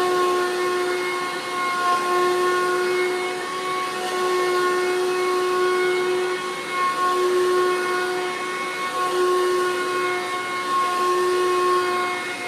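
2003 Hoover Caddy Vac vacuum cleaner running: a steady motor whine over a hiss of rushing air, the whine fading and returning every second or two. The owner takes the motor or fan to be failing.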